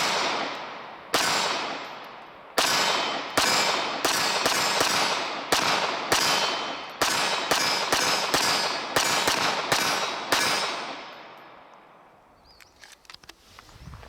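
9mm Glock 19X pistol fitted with a DPM recoil-reduction guide rod, firing a string of about eighteen shots of 115-grain full metal jacket ammunition. The shots are spaced slowly at first, then come quicker and steadier. Each shot rings out with a long echo, and the firing stops about three-quarters of the way through.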